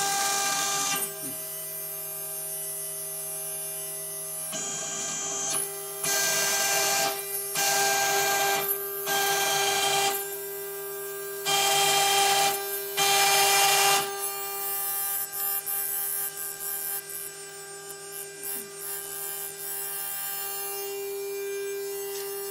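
Jcut-3030 CNC router's spindle running with a steady whine, while the bit cuts a groove into the board in about seven loud bursts of cutting noise, each around a second long, as the axes are jogged by hand. After about 14 seconds the cutting bursts stop and the spindle's whine carries on with only small, irregular noises.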